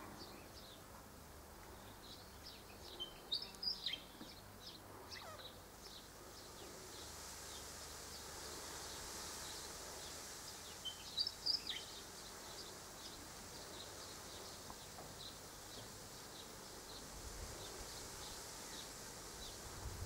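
Faint outdoor ambience with songbirds calling: a short run of high chirps about three seconds in and again about eleven seconds in, over scattered faint ticks and a soft high hiss.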